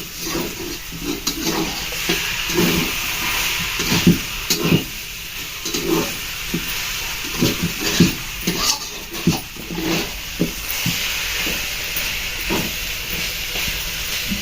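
Ginger, turmeric and sugar sizzling in a pan while being stirred, with irregular scrapes and knocks of the stirring against the pan; the mixture is being cooked until the sugar melts.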